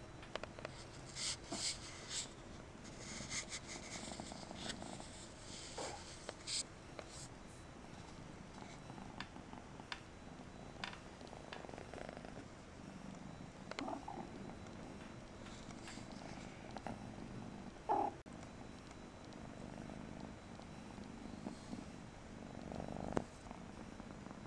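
Persian kitten purring, with scattered light clicks and scrapes from its paws and a small toy on a tile floor and a scratching ramp, thickest in the first several seconds.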